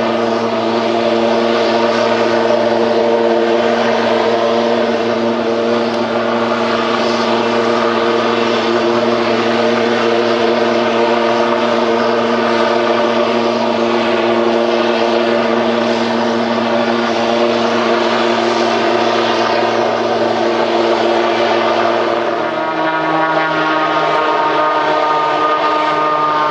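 Grob G120TP's Rolls-Royce 250 turboprop engine and three-blade propeller idling on the ground, a steady whining drone. Near the end the note shifts abruptly, with a new higher whine coming in.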